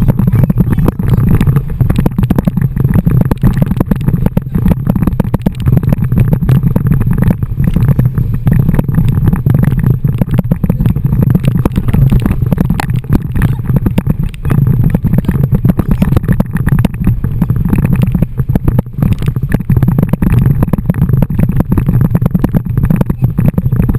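Wind buffeting the microphone of a tube-mounted camera, with water rushing and slapping beneath an inflatable towed tube skimming over the sea: a loud, deep, unbroken rush that flutters constantly.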